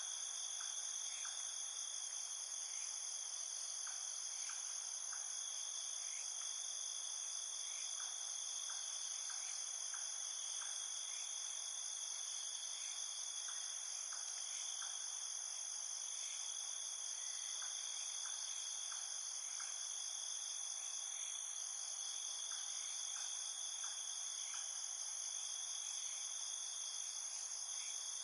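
A steady chorus of crickets or similar insects, a continuous high-pitched trilling. Small groups of short chirps recur every few seconds beneath it.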